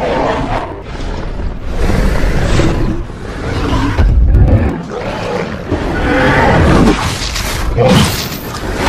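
Dinosaur roaring and growling: a string of loud roars with a deep rumble, one after another every second or two, over a film score.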